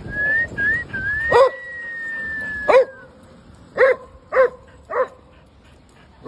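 Hounds barking as they play, with five loud, pitched barks, the last three about half a second apart. At the start a high thin whine rises in short starts, then holds for about two seconds and falls off.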